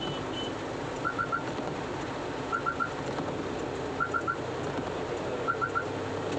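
Inside a car driving in heavy rain: a steady wash of rain and wet-road noise with the windscreen wipers sweeping. Over it, a high chirp sounds in quick threes, repeating evenly about every second and a half.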